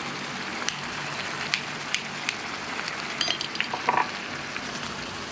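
Chilli dip mixture of chopped pork and tomato sizzling as it stir-fries in a pan, with scattered sharp ticks and a brief cluster of clicks and taps about three to four seconds in.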